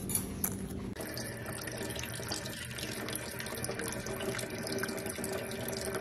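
Kitchen tap running in a thin stream, splashing over cupped hands into a stainless steel sink, starting about a second in and running steadily.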